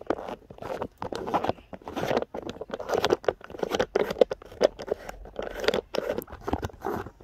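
Camera handling noise: irregular clicks, scrapes and rubbing as the recording phone is taken off its tripod mount.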